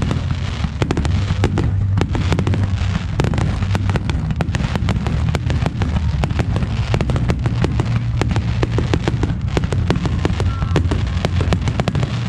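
A fireworks display in a dense barrage: rapid overlapping bangs and crackles, several a second without a break, over a continuous low rumble.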